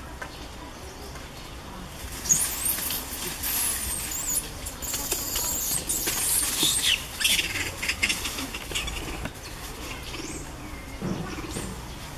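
Rustling and crackling in dry leaf litter with high, squeaky chirps, busiest from about two seconds in until about nine seconds in.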